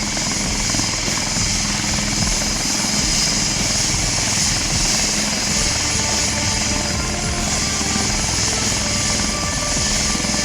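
HAL Prachand light combat helicopter running close by: a steady, loud rush of rotor and twin turboshaft engine noise with a high hiss over a constant low hum.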